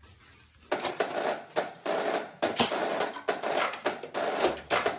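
Background music starts suddenly about a second in: a busy track with many quick percussive hits.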